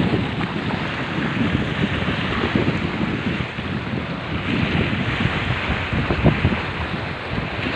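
Water rushing and splashing in a steady hiss, with uneven low rumbles of wind buffeting the microphone throughout.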